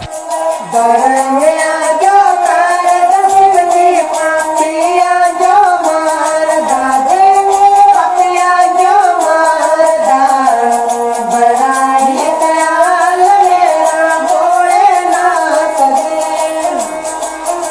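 A high voice singing a sliding, ornamented melody over a fast, steady ticking percussion.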